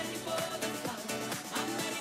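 Background music with a steady beat and sustained instrumental notes.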